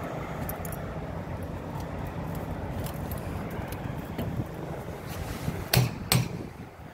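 Two sharp knocks on the stainless steel tank top, about a third of a second apart near the end. Under them runs a steady low rumble and wind noise.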